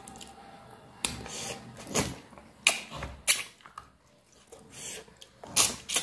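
Close-up eating sounds: a man chewing a handful of pork and rice, with wet lip smacks and mouth clicks coming irregularly about every half second to a second, and his fingers rustling rice on a banana leaf.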